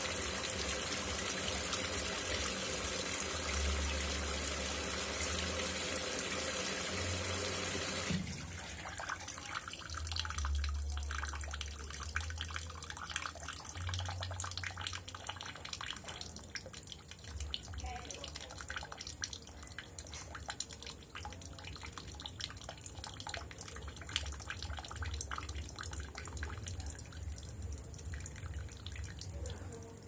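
Consul CWE13AB top-load washing machine filling: water pours into the drum with a steady hiss until the inlet shuts off abruptly about eight seconds in. After that the agitator motor hums in short pulses while the wet laundry sloshes and splashes in the tub.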